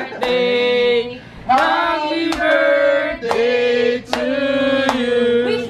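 A small group of men and women singing a birthday song together in long held notes, with hand claps on the beat.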